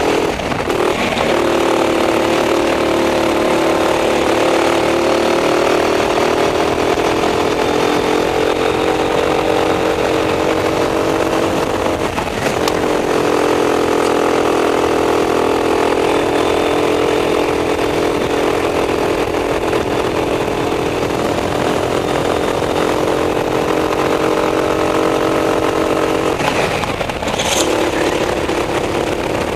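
Racing go-kart engine heard from onboard, running at high revs. It comes off the throttle briefly about a second in, again about 12 seconds in and near the end, each time dipping and then climbing back to speed as the kart brakes for a corner and accelerates out.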